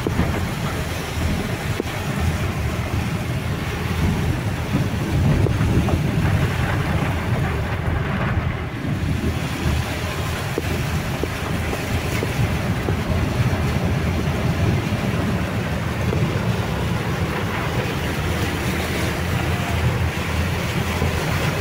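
Steady rushing noise of floodwater and heavy rain, heard while moving through a flooded street, with wind buffeting the microphone and a deep rumble underneath.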